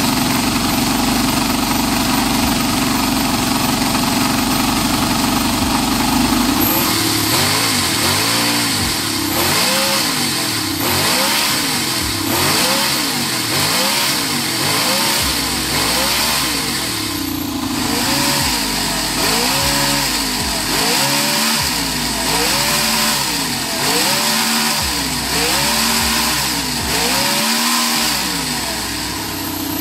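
Howin FS-V800 model four-stroke V8 engine running. It idles steadily for about the first seven seconds, then is blipped with the throttle in a long series of short revs, each rising and falling, about one a second.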